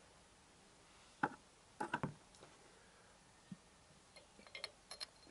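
Light metallic clicks and clinks of a bolt being fed through a steel crash bar bracket on a motorcycle frame: one sharp click about a second in, a short cluster just before two seconds, then a run of small high ticks near the end.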